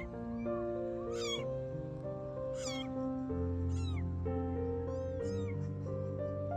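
Kitten meowing repeatedly, short high-pitched calls about once a second, over background music with sustained notes.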